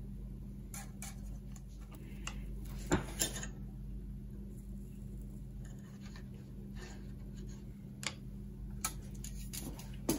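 Light taps and clicks from handling a short piece of thin PTFE-cored coax and solder on a wooden board while its ends are tinned with a soldering iron, over a steady low hum. The two sharpest clicks come close together about three seconds in, and a few more fall near the end.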